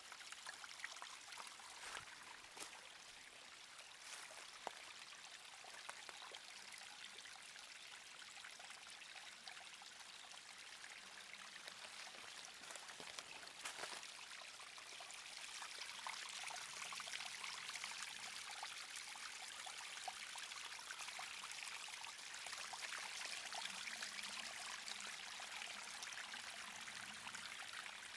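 Small muddy forest trickle of water running over stones and mud, a steady splashing trickle that grows a little louder about halfway through. A few sharp clicks sound in the first half.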